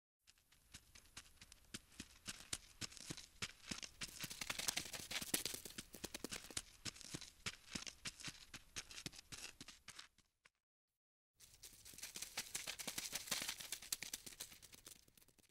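Sound effect of a ladybug crawling: a dense, rapid pattering of tiny clicks and scratches that swells and fades. It cuts to silence about ten seconds in and then returns for a second pass.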